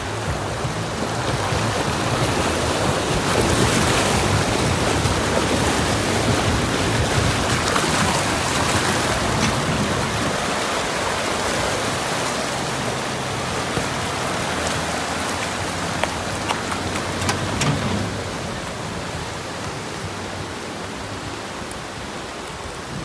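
Rushing river water churning over rocks, loud and steady, loudest in the first half, with a vehicle engine running low underneath. A few sharp clicks sound near the three-quarter mark.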